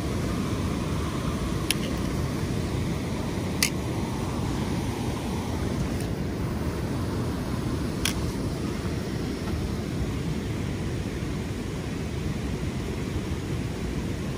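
Steady low rushing noise of wind and water at a rain-swollen river mouth, with three sharp clicks at about two, three and a half and eight seconds.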